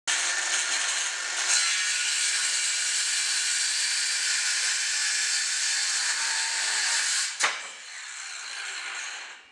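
Ryobi One+ cordless circular saw running through a piece of wood with its old blade, which the owner says has gone dull and takes a while to get through wood. A sharp knock comes about seven seconds in, and the saw then runs on more quietly until near the end.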